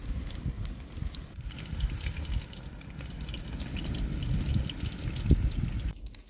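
Eggplant slices frying in oil, with light, scattered crackling and sizzling, over a low, uneven rumble of wind on the microphone. The sound drops sharply near the end.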